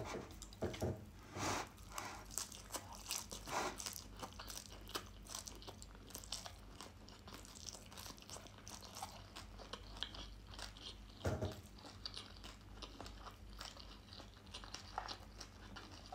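A person chewing a mouthful of fried shredded-potato hash browns, with soft, irregular crunches and wet mouth sounds.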